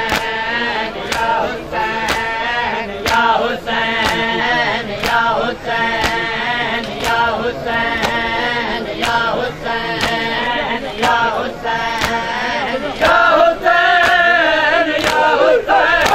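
Crowd of men chanting a noha (mourning lament) in chorus, with unison chest-beating (matam) landing as a sharp slap about once a second. The chanting grows louder near the end.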